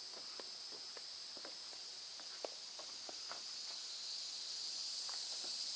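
Steady, high-pitched insect chorus, rising in level toward the end, with faint irregular clicks scattered through it.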